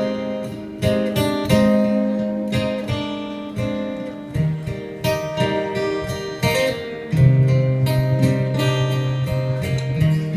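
Acoustic guitar playing picked chords: a steady run of plucked notes over held bass notes.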